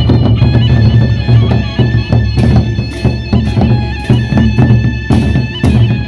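Sasak gendang beleq ensemble playing: large double-headed barrel drums beaten with sticks, over a steady low hum and held ringing metallic tones, with repeated cymbal crashes.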